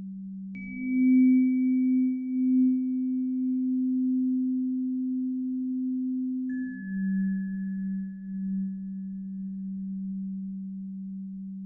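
Synthetic breathing-pacer tones for HRV breathing. A low steady hum steps up to a higher tone with a struck, bell-like onset about half a second in. About six seconds later it drops back to a lower tone with a softer chime, marking a switch between breathing phases roughly every six seconds.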